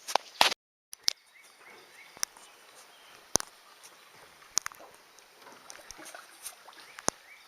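Scattered sharp knocks and clicks, several close together near the start and then single ones every second or so, over faint outdoor background. The sound cuts out completely for a moment just under a second in.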